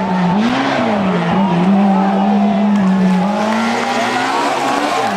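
BMW M3 E30 rally car's four-cylinder engine running hard at high revs, its pitch held high and wavering a little up and down.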